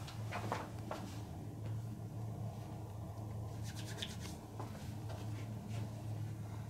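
Hands rubbing and brushing over skin and hair during a massage, with a quick run of light taps or clicks about four seconds in, over a steady low hum.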